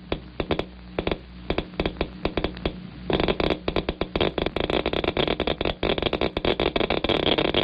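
Geiger counter clicking irregularly, a few clicks a second, counting gamma rays from cobalt-60 that pass through a wood barrier. About three seconds in, the clicks become louder and more frequent over a steady hiss.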